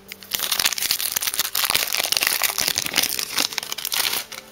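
Foil wrapper of a Pokémon TCG Battle Styles booster pack crinkling as it is handled and opened, a dense crackle that lasts about four seconds and tails off near the end.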